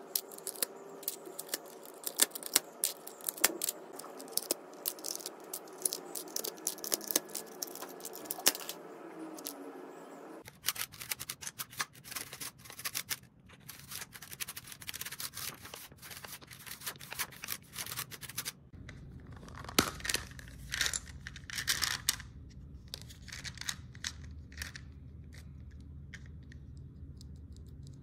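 Keychron K2 mechanical keyboard with transparent keycaps being typed on: quick, irregular key clicks. The background changes at about ten seconds and again near nineteen seconds, and the keystrokes are fewer and more spaced in the last part.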